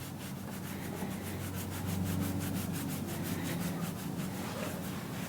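A hand scratching and rubbing a horse's coat in rapid, even strokes, over a steady low hum.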